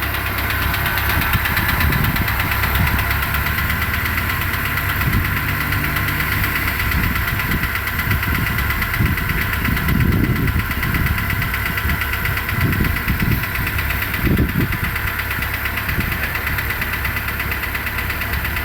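Renault Logan engine idling during warm-up after a cold start, with a light rustling, chattering knock on top of the idle. The noise comes on a while after a cold start and fades later; the owner cannot tell whether it is a knock or a rustle.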